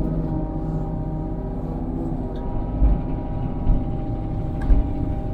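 Kubota KX033-4 mini excavator's diesel engine running steadily under work. Three low thumps come about a second apart in the second half.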